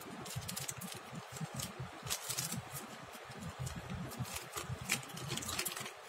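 A small clear plastic accessory bag crinkling as it is handled, with the small mic clip and parts inside clicking against each other in irregular light crackles.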